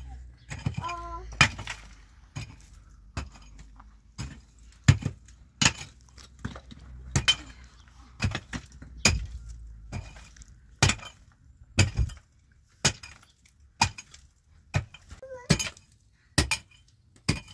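A hand digging tool striking stony earth over and over, about once a second, each blow a sharp knock with a clink of metal on stone.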